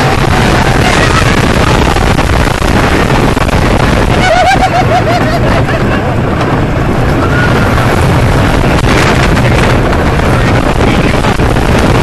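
A roller coaster train running along a wooden track at speed: a loud, steady rush of wind buffeting the microphone mixed with the rumble of the cars on the track. A rider gives a brief wavering yell about four and a half seconds in.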